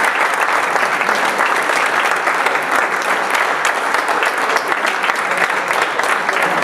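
Audience applauding: a steady wash of many hands clapping.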